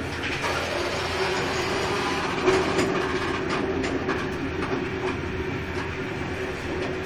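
Running noise heard from inside a moving rail carriage: a steady rumble and hum, with a few sharp clicks from the wheels between about two and a half and four seconds in.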